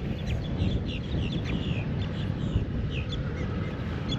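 Many short bird chirps and calls, several birds overlapping, over a steady low rumble of wind on the microphone.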